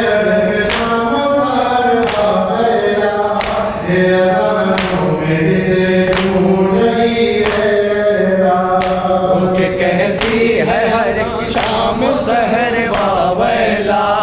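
Voices chanting a noha, an Urdu lament, in long held notes, over a regular beat of sharp strikes about every three-quarters of a second. About ten seconds in the voices become more wavering and layered.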